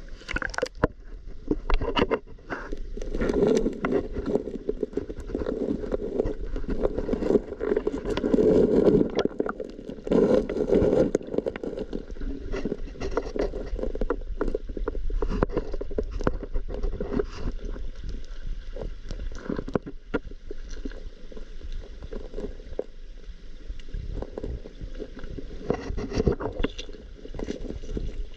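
Water sloshing with a stream of scrapes and knocks, heavy and muffled, busiest in the first half.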